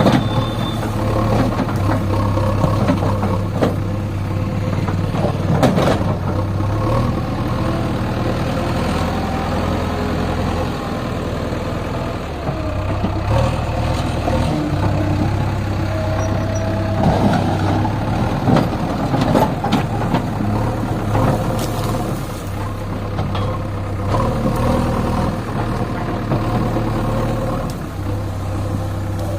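JCB 3DX backhoe loader's diesel engine running under changing load, its steady low hum shifting in level every few seconds, with several sharp knocks.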